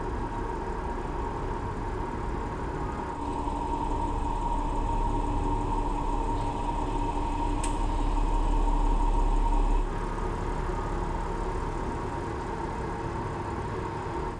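A self-parking Audi car moving slowly through a parking garage: a steady low engine rumble with a constant hum. The sound shifts abruptly twice and is loudest just before the second shift, and there is one sharp click about halfway through.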